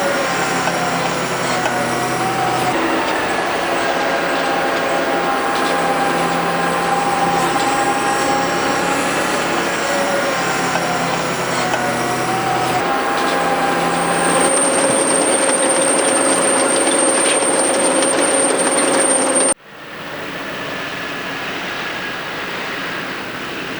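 John Deere 6140R tractor and Dewulf potato harvester working: a steady mechanical din of engine and driven machinery with a metallic rattling and whining from the harvester's moving parts, a high whine added for the last few seconds. Near the end it cuts abruptly to a quieter steady engine sound.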